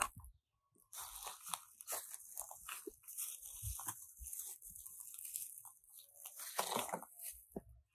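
Footsteps crunching and scuffing irregularly on dry dirt strewn with dead leaves, with a louder crunch near the end.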